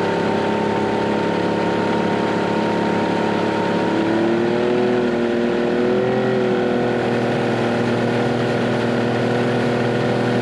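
Motorboat's outboard engine running steadily under way. Its pitch rises a little about four seconds in, then wavers.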